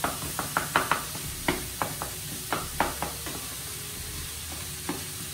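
Wooden spoon scraping and knocking in a skillet as chorizo and chopped vegetables are broken up and stirred, over a steady sizzle of frying. The spoon strokes come about three a second, then thin out after about three seconds, leaving mostly the sizzle.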